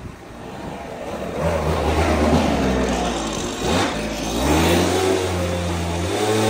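An engine speeding up from about a second in, dropping and sweeping back up in pitch near the middle, then running steadily at a higher pitch near the end.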